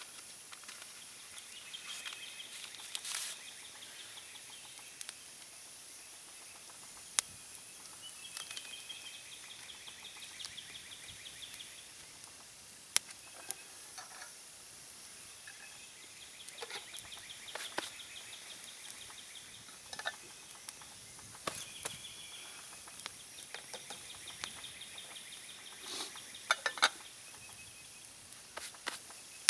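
Woodland birds calling, a short high trilling call repeated every few seconds, over scattered sharp clicks and pops from the campfire. Near the end comes a quick cluster of louder clicks as the canteen cup on the grate is handled.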